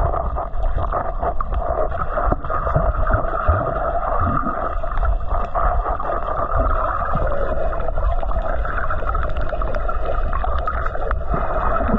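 Muffled underwater sound from a submerged camera: a heavy low rumble of water moving around it, with a steady drone running through and faint scattered clicks.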